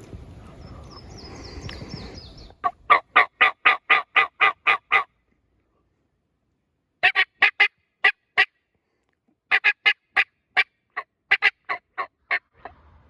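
Wild turkey yelping in three runs of loud, evenly spaced notes, about four a second, with pauses between the runs.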